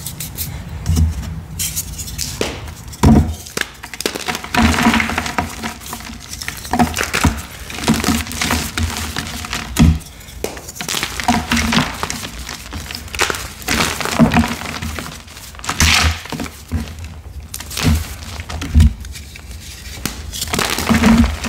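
Dyed gym chalk blocks being crushed and snapped by hand: a run of dry crunches and sharp cracks at uneven intervals, with powdery crumbling between the breaks.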